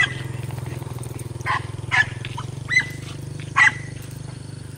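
Hunting dogs barking in short sharp yelps, four times over a few seconds, over a steady low hum.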